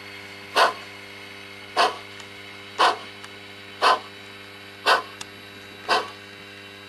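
Sound-decoder steam exhaust of an HO-scale Pennsylvania Railroad 0-6-0 switcher model: slow, even chuffs about once a second, six in all, over a steady electronic hum from the onboard speaker.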